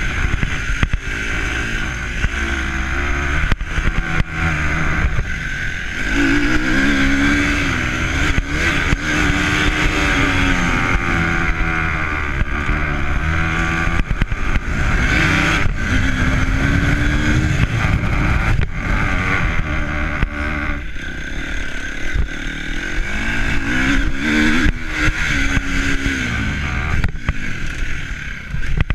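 A vehicle engine running under load, its pitch rising and falling several times as it accelerates and eases off, with wind noise on the microphone.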